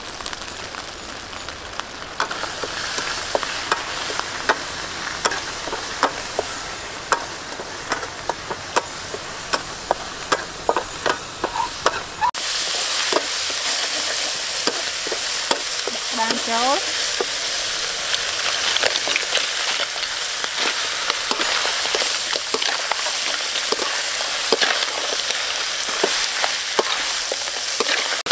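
Curry paste frying in a metal wok over a wood fire, a metal spoon scraping and clicking against the pan. The sizzle becomes louder and hissier about twelve seconds in.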